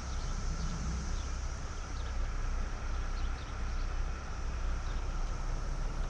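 Steady street traffic noise at a city intersection: an even, low rumble with no single event standing out.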